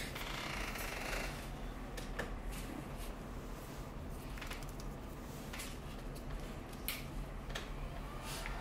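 Quiet room tone with a steady low hum and a few faint, short clicks spread through it.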